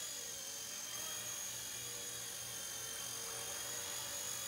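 Blade Nano S2 micro RC helicopter hovering: a steady high-pitched whine of its small electric motors and spinning rotor.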